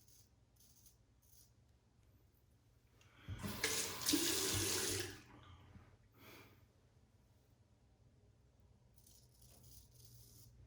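Tap running into a sink for about two seconds, rinsing the straight razor. Faint short scrapes of the razor on lathered stubble come before and after it.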